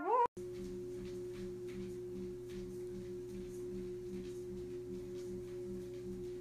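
A brief gliding voice cuts off abruptly at the start. Then a motorised treadmill runs with a steady hum and a faint regular pulse as its belt turns under a walking dog.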